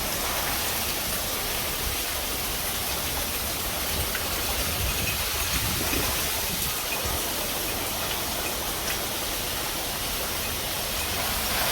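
Heavy hurricane rain falling in a steady, unbroken rush.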